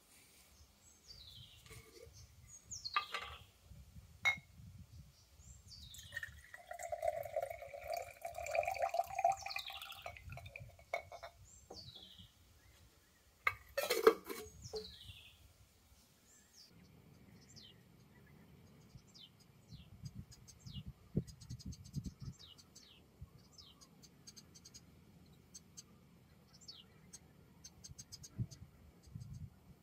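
Water with ground azurite pigment poured from a small glass jar into a tall glass jar, then the small jar set down on a wooden rail with a single sharp knock about halfway through. Birds give falling whistled calls through the first half, and fast high chirping fills the second half.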